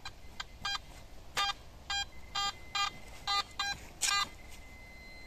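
Metal detector beeping about ten times in short mid-pitched tones, irregularly spaced over the first four seconds, as its search coil is swept back and forth over a dug hole: the detector is signalling a metal target in the hole.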